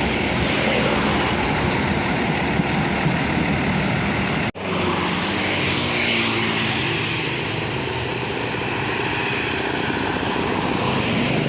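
Steady roadside traffic noise with heavy vehicles going past. The sound drops out for an instant about four and a half seconds in, followed by the low drone of a large engine passing.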